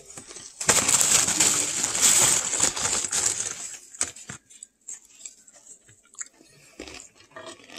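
Crisp tostada being bitten and chewed close to the microphone: loud crunching for the first few seconds, then softer chewing with small clicks.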